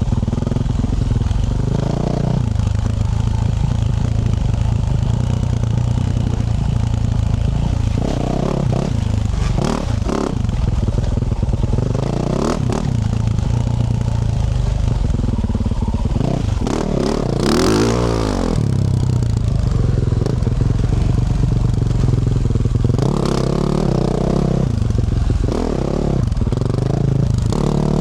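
Yamaha YZ450F four-stroke single-cylinder dirt bike with a Yoshimura RS-12 exhaust, running on and off the throttle over rough ground. Its pitch rises and falls in short revs several times, with one big rev near the middle.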